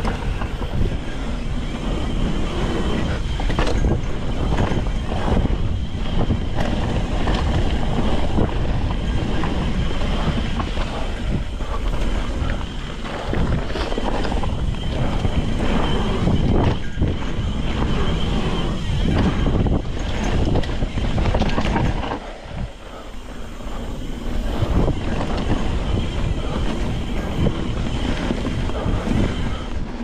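Riding noise from a Cannondale Scalpel full-suspension mountain bike on a dirt singletrack: wind rushing over the microphone, tyres on dirt, and frequent knocks and rattles of the bike over bumps. It goes briefly quieter about 22 seconds in.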